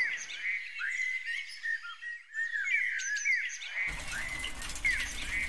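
Birds chirping: a steady run of short chirps, several a second. About four seconds in, a low even background noise comes in under them.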